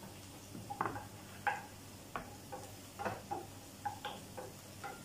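Wooden spatula knocking and scraping against a nonstick frying pan while stirring sautéing onion: light, uneven knocks, about two a second, each with a short ring from the pan.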